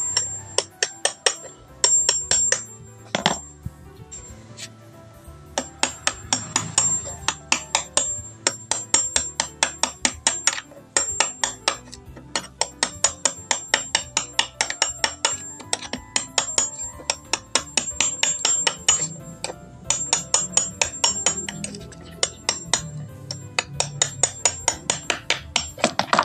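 Background music with a quick, clicking, plucked beat, over the scrape and crack of a screwdriver prying the worn veneer skin off a blockboard panel.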